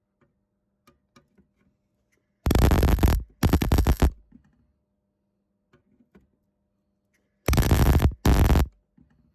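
MIG welder striking a crackling arc in four short bursts, in two pairs: one pair about two and a half seconds in, the other about seven and a half seconds in, each burst starting and stopping abruptly.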